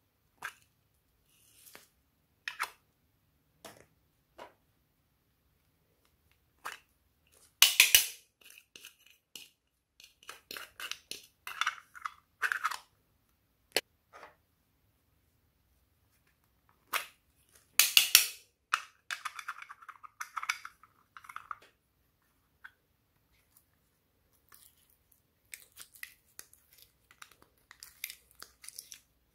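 Glossy slime being squished and stretched by hand, giving sticky pops and clicks with crackling runs. Two louder crackly bursts come about a third of the way in and again past the middle.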